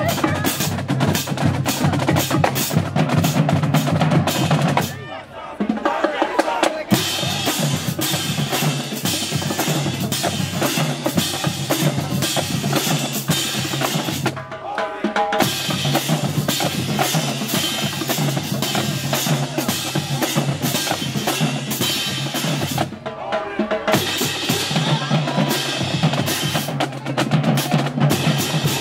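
Marching band drumline of snare and bass drums playing a fast, driving cadence, breaking off briefly three times before picking back up.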